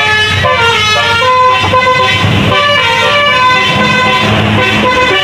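Bus telolet basuri horn playing a tune of several held notes, stepping from one pitch to the next, over a low rumble.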